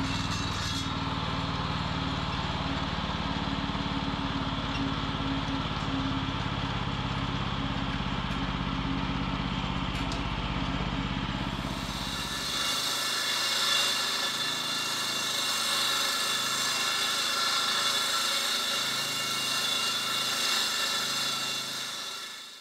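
Bartell gas-engine walk-behind concrete surface-preparation machine running on a new concrete slab, raising dust. About twelve seconds in, the low engine rumble drops away and a harsher, higher hissing grind takes over.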